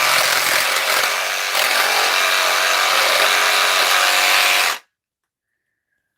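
Handheld power tool running steadily at full speed, then cutting off suddenly near the end.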